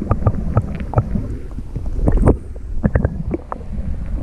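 Lake water sloshing and splashing around a camera held just under the surface, with many irregular clicks and knocks; a low rumble drops away suddenly a little past halfway.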